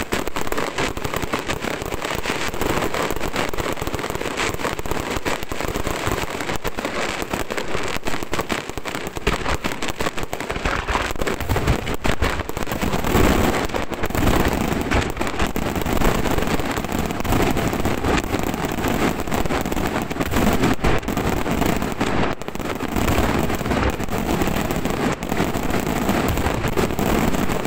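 Fireworks display firing continuously: dense crackling and rapid bangs from ground fountains and low aerial bursts, with deeper bangs from about eleven seconds in.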